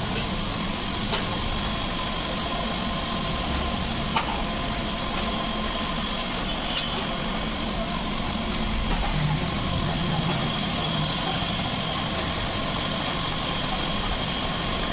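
Compressed-air spray gun hissing steadily as it sprays paint onto a motorcycle fuel tank, over the steady hum of an air compressor. The hiss briefly drops away about six seconds in.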